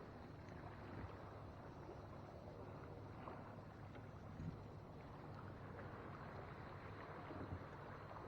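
Faint steady outdoor background noise in a small aluminium fishing boat, with a few light knocks of gear against the boat about a second, four and a half and seven and a half seconds in.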